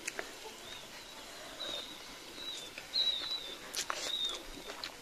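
A small bird chirping repeatedly in the background, short high chirps coming in quick runs through the middle of the stretch, with a few faint clicks.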